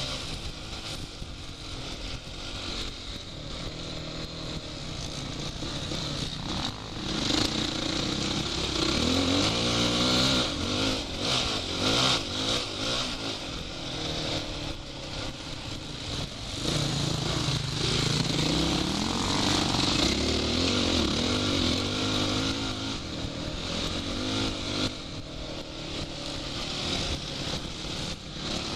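Off-road motorcycle engine revving up and down through the gears at speed, with wind noise over the microphone.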